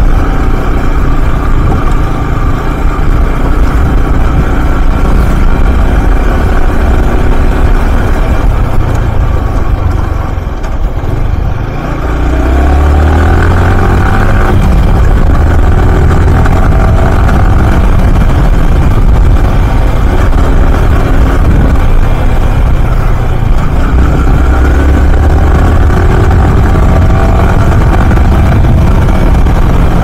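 Yamaha R15M's 155 cc single-cylinder engine running on the move. The revs drop briefly about ten seconds in, then climb again, and rise once more later on under acceleration.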